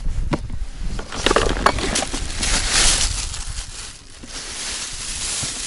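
Plastic bag crinkling and rustling as a caught bream is pushed into it inside a winter fishing box, with a few sharp knocks in the first two seconds and a softer rustle near the end.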